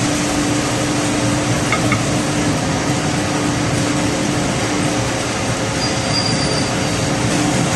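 Steady roar of commercial kitchen ventilation, with a steady low hum running under it.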